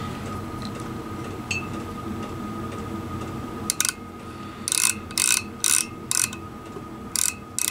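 Ratchet thimble of a digital outside micrometer clicking in short bursts, about two a second, starting about halfway through, as the spindle is run down onto a telescopic bore gauge. A steady low hum sits underneath.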